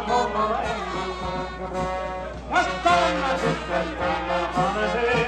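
Live brass band of trumpets and trombones playing a tune, with a man singing into a microphone over it.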